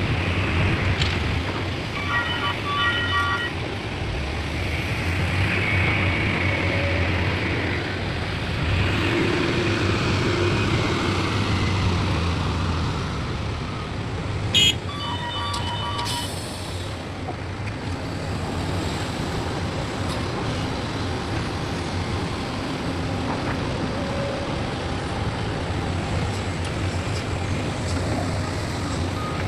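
Diesel engines of an excavator and dump trucks running steadily, with short runs of electronic beeping about two seconds in and again midway, just after a sharp knock.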